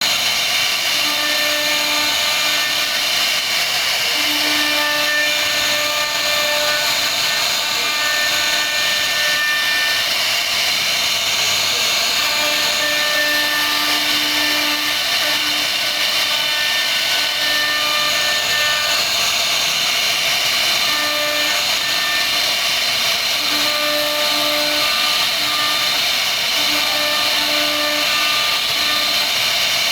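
CNC router carving wood: a steady high-pitched spindle whine and cutting hiss, with a lower tone that switches on and off every second or two as the machine moves.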